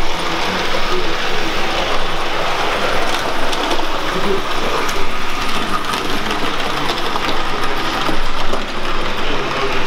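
Model train running on a layout: the small electric motor whirs and the wheels click faintly over the track, over a steady background noise.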